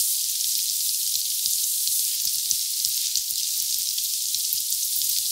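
Egg-battered jeon frying in a pan of hot oil: a steady sizzle with many small crackles and pops.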